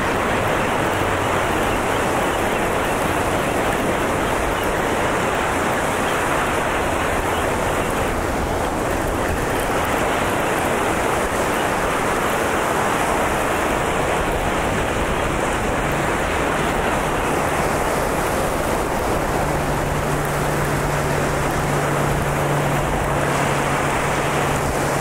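Steady wash of breaking surf rolling in over a shallow sandy beach, with a faint low steady hum underneath in the later part.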